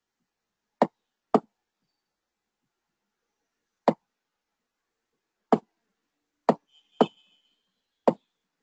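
Seven sharp, separate computer mouse clicks at irregular intervals, with nothing else heard between them.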